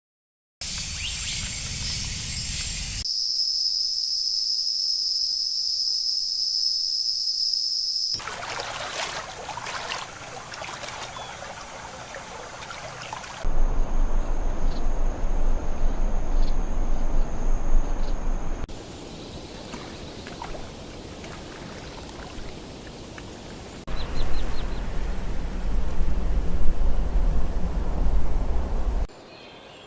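Rainforest ambience in short clips that change abruptly every few seconds. One clip holds a loud, steady, high-pitched insect drone. Others hold water-like rushing and trickling noise, two of them with a heavy low rumble.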